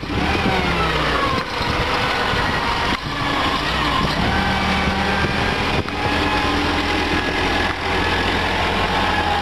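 Daewoo forklift engine running steadily, with a higher whine that glides up and down in pitch over it.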